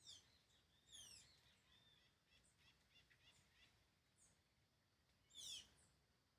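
A songbird calling: a quick phrase of high notes that falls in pitch, given three times (at the start, about a second in, and again near the end), with softer chirps in between. The whole is faint.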